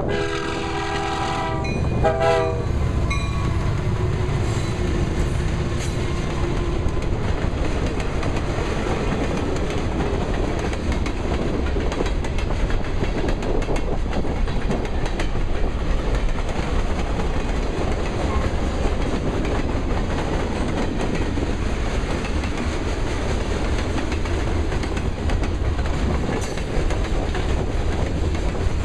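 A freight locomotive's Nathan K3H three-chime air horn sounds a long chord, then a short blast about two seconds in. The freight cars then roll past close by, with a steady rumble and the clickety-clack of wheels over rail joints, and wind buffets the microphone.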